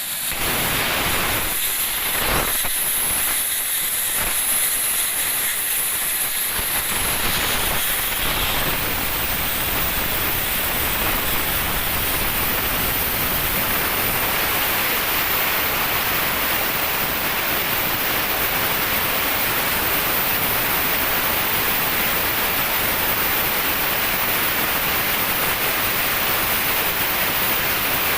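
Plasma cutter running, a steady hiss of the cutting arc and compressed air that holds at an even level throughout.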